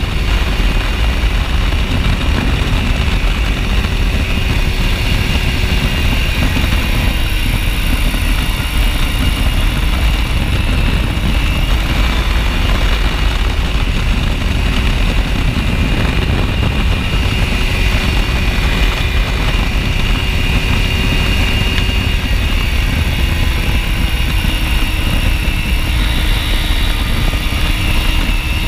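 Ultralight aircraft's engine and propeller running steadily in cruise flight, the pitch drifting slightly up and down, with heavy wind rush on the microphone.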